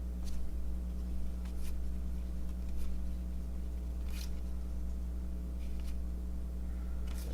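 Baseball trading cards being flipped and slid off one another, about six soft swishes a second or so apart, over a steady low electrical hum.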